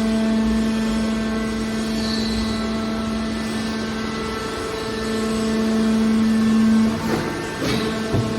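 Hydraulic aluminium can baler running with a steady mechanical hum. The hum stops about seven seconds in, and a few irregular knocks and rattles follow.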